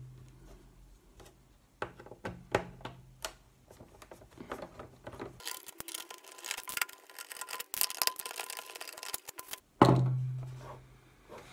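Clicks, taps and scraping of a screwdriver and fingers on the plastic casing of an Audi instrument cluster as it is pried open. The rapid clicking and scraping thickens for a few seconds in the middle, and there is a single loud thump about ten seconds in.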